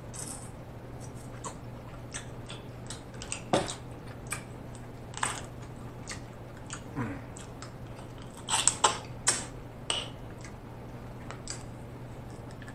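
King crab leg shells being cracked and snapped apart by hand, with close-up eating sounds: a scattered run of sharp crackles and wet clicks, the busiest and loudest about two-thirds of the way through. A faint steady low hum runs underneath.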